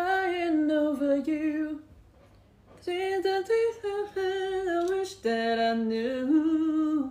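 A woman's voice singing a wordless tune unaccompanied, in two phrases of held notes with a break of about a second near two seconds in.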